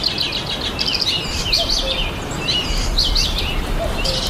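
Several wild birds singing in a spring forest, with overlapping chirps and quick trills all through. A low rumble runs underneath.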